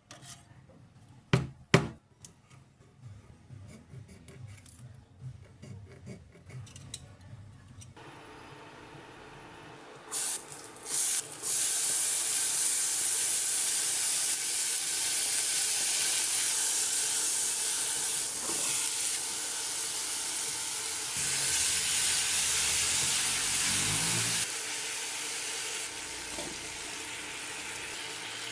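Two sharp knocks near the start, then about ten seconds in a loud, steady sizzle of food frying in hot oil in a pan begins and carries on.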